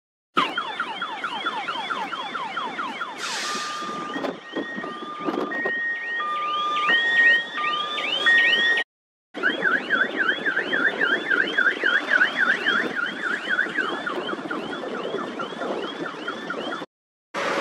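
Electronic warbling alarm, a rapid chirp that rises and falls about four times a second, over truck engine noise. Partway through, a two-note beep alternates over it, and the sound cuts out briefly twice.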